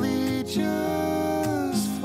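Background music led by acoustic guitar, with a melody of held, gliding notes.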